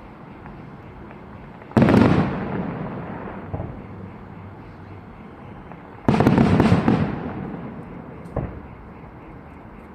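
Aerial fireworks shells bursting: two loud booms about four seconds apart, each rumbling away as it echoes, with two fainter pops between them.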